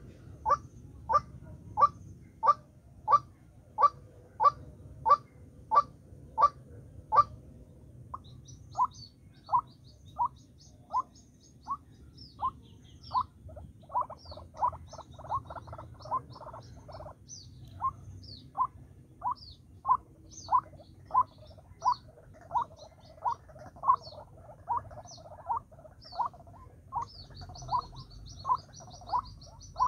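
White-breasted waterhen calling: a long run of evenly repeated call notes, about one and a half a second, coming quicker for a few seconds about halfway through. Thin high chirps sound faintly above it.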